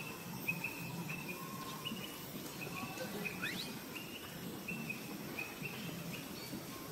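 Birds chirping: a run of short, high, same-pitched chirps, with a quick rising and falling call about halfway through, over steady outdoor background noise.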